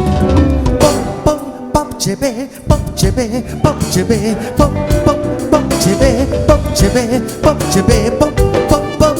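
Live African gospel praise band playing an upbeat dance groove with a fast, dense percussion beat and singing over it. The bass and drums drop back for about a second, around two seconds in, before the full beat comes back in.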